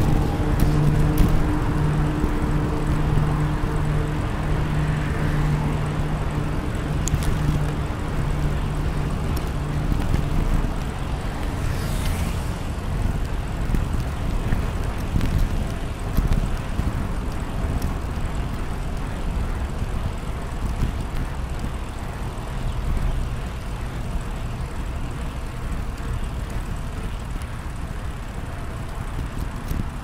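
A steady engine hum with a few even tones, fading out about ten seconds in, over a continuous low rumble of wind and rolling noise from riding a bicycle.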